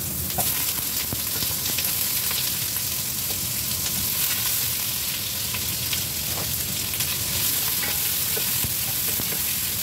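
Onions sizzling in hot oil in a pot as they are sautéed, with a steady frying hiss. A wooden spatula stirs them, with small scrapes and taps against the pot now and then.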